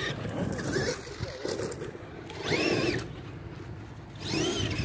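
Electric RC truck motor whining as it revs up and back down, twice: about two and a half seconds in and again near the end, over a steady low rumble.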